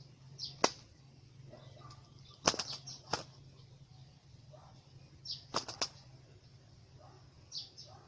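Spotted dove caught in a rope bird trap, flapping its wings in short bursts of sharp claps. Short, high chirps sound between the bursts.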